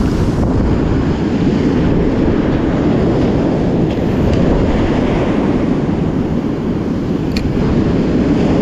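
Ocean surf breaking and washing up the beach, under a steady low rumble of wind on the microphone.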